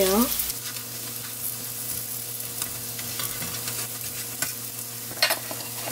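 Batter-coated eggplant slices sizzling as they shallow-fry in oil in a nonstick pan, with a few light clicks as a wooden skewer moves and lifts them.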